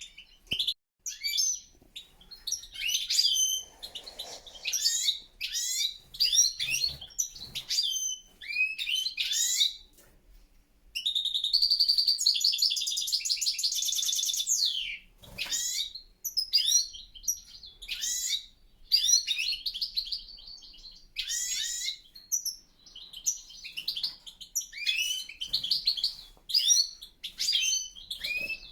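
European goldfinches chirping and twittering in a breeding aviary: quick calls and song fragments throughout, with one longer unbroken run of song about eleven seconds in that lasts some four seconds.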